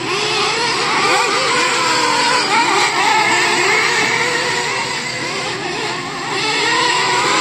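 Several radio-controlled race cars running laps together, their motors overlapping and rising and falling in pitch as they accelerate and ease off through the turns.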